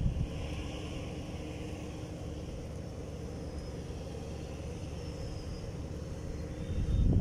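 Steady low rumble with a faint, even hum running through it.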